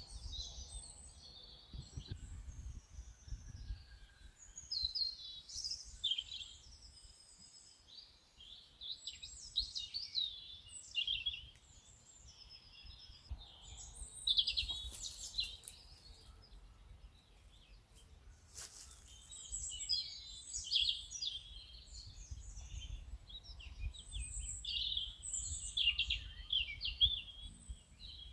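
Several birds chirping and singing in overlapping short phrases over a low, steady rumble of outdoor ambience, with one brief click about two-thirds of the way through.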